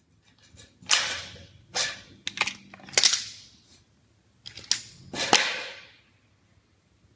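Thin Colorbond sheet-steel box gutter being cut with tin snips and worked by hand: a series of about six sharp metallic snaps, each with a brief rattling ring of the sheet.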